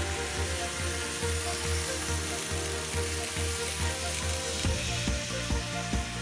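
N-gauge model trains running on the layout track, a steady hissing rumble of small wheels and motors. About two-thirds through, a regular clicking sets in, about three to four a second, as a model container freight train passes close by.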